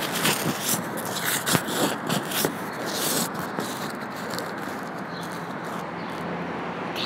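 Handling noise from a phone held in the hand: scraping and clicking of fingers and fabric against the microphone, strongest in the first three seconds, then a steady low hum of background noise.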